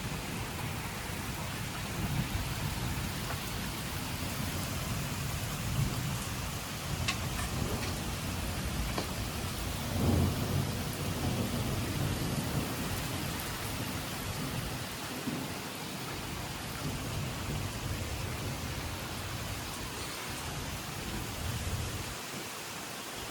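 Heavy rain pouring steadily, with a low rumble underneath that rises and falls and swells loudest about ten seconds in.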